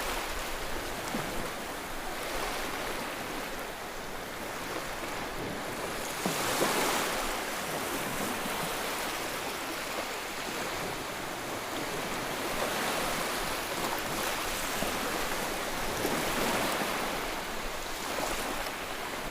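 Sea waves washing onto a beach: a steady rush of surf that swells and eases every few seconds, loudest about six and a half seconds in.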